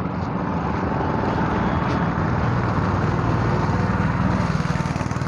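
A motor vehicle engine running close by, growing a little louder, over a steady outdoor din.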